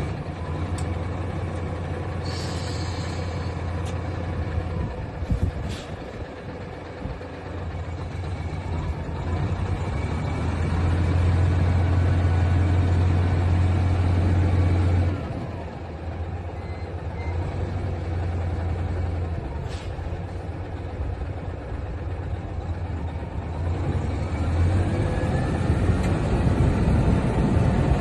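2007 Hino FS 700 truck's diesel engine running just after starting, with a steady low hum that gets louder for a few seconds in the middle and drops back suddenly. A short hiss of air sounds about two seconds in.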